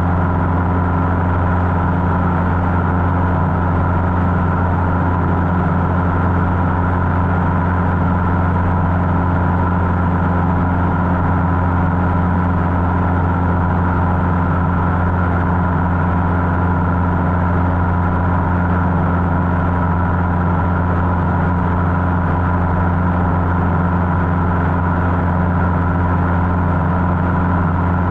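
Cessna 150's Continental O-200 four-cylinder piston engine and propeller droning steadily at a constant power setting, with no change in pitch.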